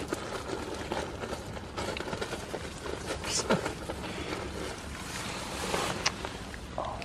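Goats shuffling and stepping in straw close by: an uneven rustling with scattered knocks and a few sharper clicks.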